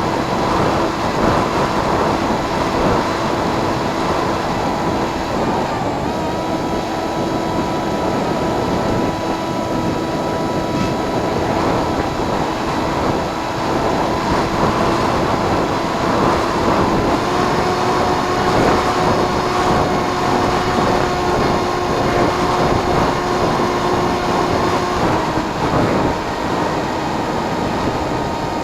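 Onboard sound of a radio-control plane in flight: a steady motor and propeller hum under heavy rushing air. The hum's pitch steps up about two-thirds of the way through and drops back near the end as the throttle changes.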